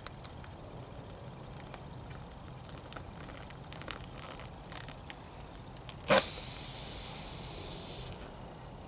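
Aerosol cleaner sprayed in one hissing burst of about two seconds, starting about six seconds in, onto the tire's puncture before it is plugged. Faint clicks and taps of handling come before it.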